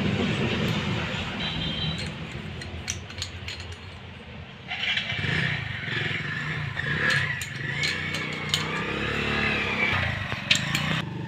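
Steady engine noise with sharp metallic clicks and clinks of metal parts over it.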